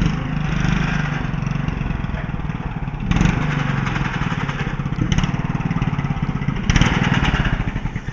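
Riding lawn mower engine running under load while the mower is driven. It gets louder several times, then fades and stops at the very end.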